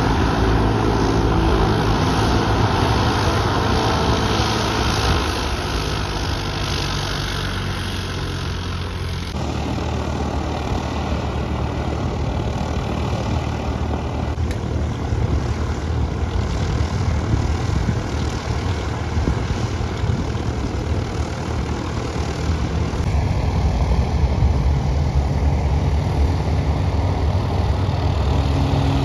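Light single-engine propeller airplane's piston engine running steadily. The sound changes abruptly about nine seconds in.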